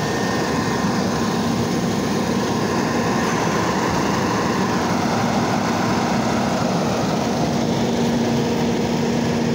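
Automated side-loader garbage truck's engine running steadily at idle, with a steady low hum that grows stronger after the first few seconds.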